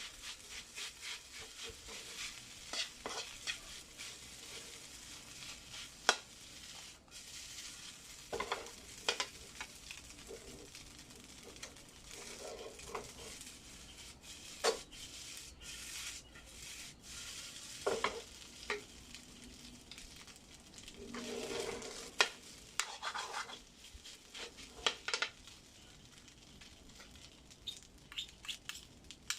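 Fried rice with egg sizzling in a pan as a spatula stirs and scrapes through it. Sharp metal clinks and scrapes come every second or two, the loudest about six seconds in and again about twenty-two seconds in.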